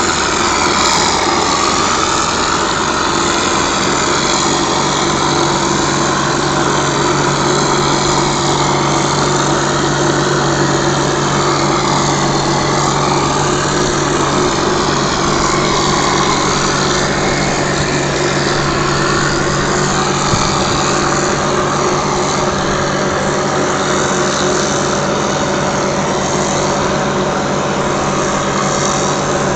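JP60 mortar plastering machine running steadily, its motor and pump holding an even drone, while mortar sprays from the hose nozzle onto a wall with a continuous hiss.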